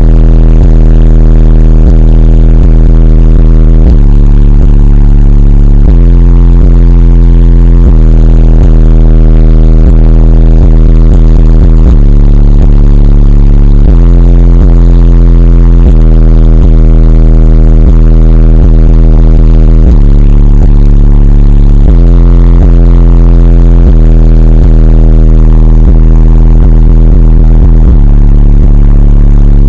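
Extremely loud car-stereo bass from twelve Sundown SA-12 subwoofers playing a rap track: deep sustained bass notes that shift every couple of seconds, overloading the microphone into a distorted drone.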